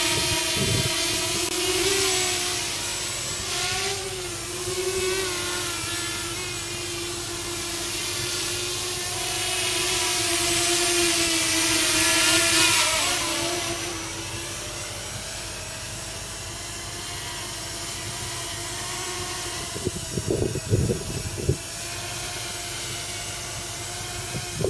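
Walkera Runner 250 racing quadcopter's four brushless motors and propellers whining in flight, the pitch wavering and shifting with the throttle, loudest about twelve seconds in and then lower. A few low thumps of wind on the microphone near the end.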